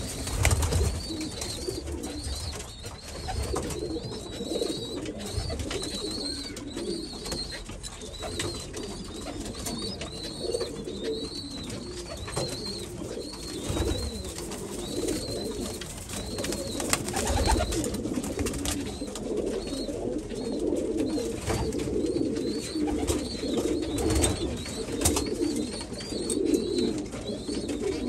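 Domestic pigeons cooing continuously in a low, warbling run. A thin high chirp repeats about once a second, and there are a few short low thumps.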